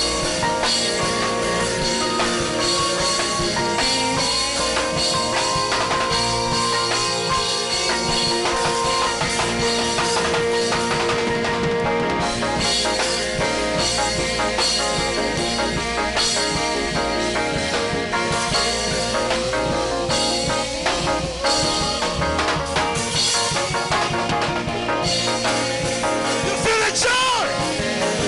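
Worship band music with drum kit and guitar, playing steadily with held notes underneath.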